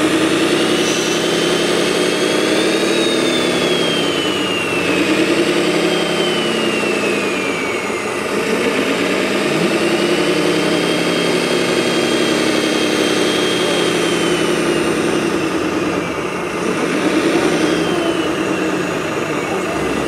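Radio-controlled scale wheel loader at work: an engine sound that revs up and falls back every few seconds as it drives back and forth, with a thin high whine that rises and falls in pitch along with its movement.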